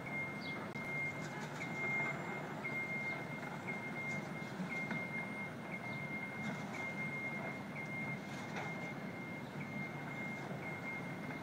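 Travel alarm of a small self-propelled scissor lift beeping as the lift drives: one high tone repeating about once a second, each beep long with only a short gap, signalling that the machine is moving.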